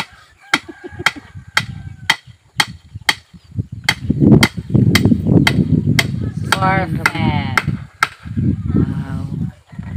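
Sharp, regular knocks about two a second as a wooden post is pounded into the ground, with heavier low thudding from about four seconds in.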